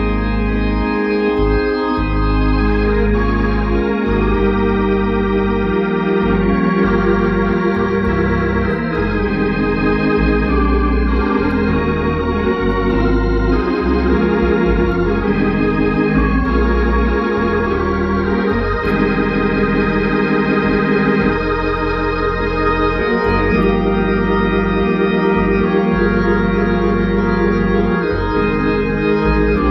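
Hammond organ playing a gospel worship hymn in full sustained chords over a low bass line that moves every second or two.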